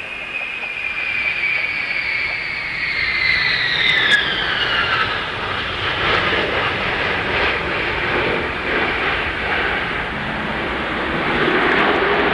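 Jet whine and roar from a rear-engined four-jet airliner flying low past on final approach. The whine falls in pitch as it passes about four to five seconds in, leaving a steady roar that swells again near the end as it nears touchdown.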